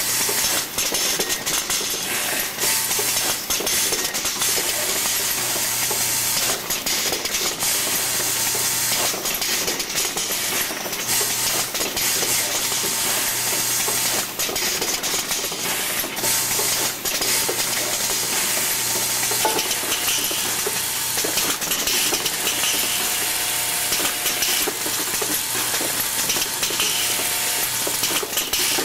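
Automated assembly machine running, its vibratory bowl feeder giving a low buzz that comes and goes every few seconds as small metal parts are shaken along the spiral track. Over it there is a steady hiss and frequent sharp clicks and clacks from the machinery.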